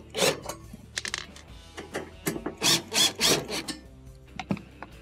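Cordless Makita driver with a Phillips bit backing screws out of a range's sheet-metal rear access plate, running in several short rasping bursts during the first three and a half seconds, with metal rubbing and handling noise after.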